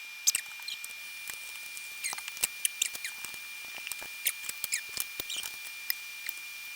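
Rapid clicks, clinks and short squeaky scrapes of kitchen utensils as cookie ingredients are measured and mixed, over a steady high-pitched whine.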